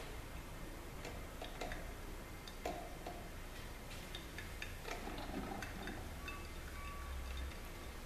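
1980s Norelco drip coffee maker brewing water: irregular soft ticks and small pops from its heater and drip.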